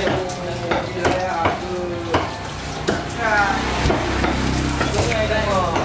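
Knife cutting a tuna loin on a wooden chopping block: sharp, irregular knocks of the blade against the wood, about two a second, with wet scraping of the knife through the flesh in between.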